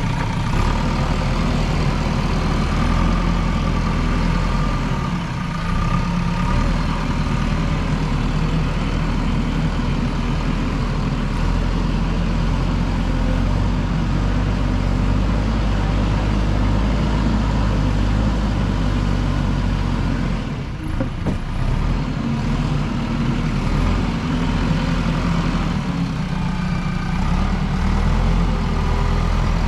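JCB backhoe loader's diesel engine running steadily under work, with a brief drop in the engine sound about two-thirds of the way through.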